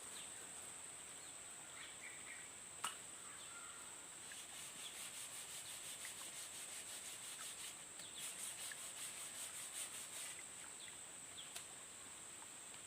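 Faint rhythmic scraping on wood, about four strokes a second, running for several seconds in the middle, over a steady high-pitched insect drone. A single sharp click comes about three seconds in.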